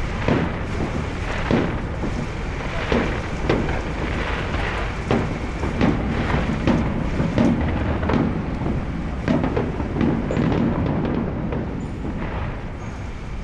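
Fireworks going off: an irregular series of loud bangs, about one or two a second, each trailing a low rumbling echo, fading slightly near the end.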